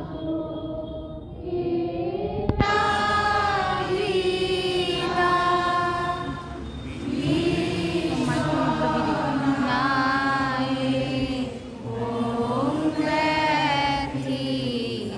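People singing a slow devotional hymn in phrases of long, drawn-out notes. About two and a half seconds in there is a sharp click and the sound turns suddenly brighter.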